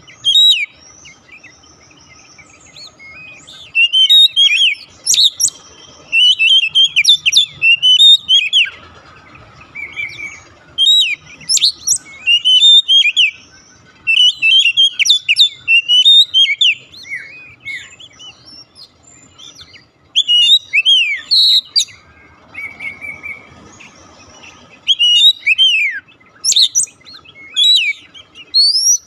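Oriental magpie-robin singing: quick, varied whistled phrases and chirps in bursts of a second or two, with short pauses between them.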